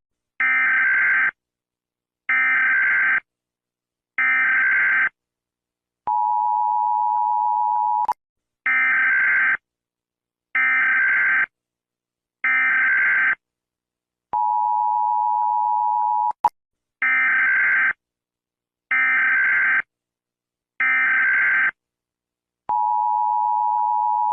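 Emergency alert tone: three short beeps about two seconds apart followed by one long, steady, lower-pitched tone of about two seconds, the cycle repeating three times. A sharp click sounds between the second and third cycles.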